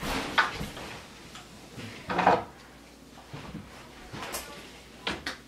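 A few short wooden knocks and scrapes from a person getting down and settling on a wooden floor and moving things about: one at the start, one about two seconds in and a pair near the end.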